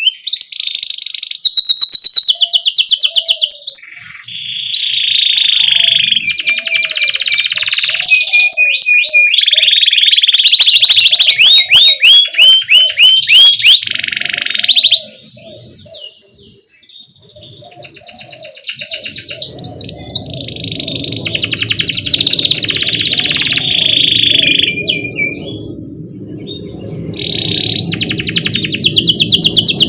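Domestic canary singing: fast rolling trills and repeated chirping phrases in bursts of a few seconds, with a quieter gap a little past the middle. From about two-thirds of the way in, a low steady noise runs under the song.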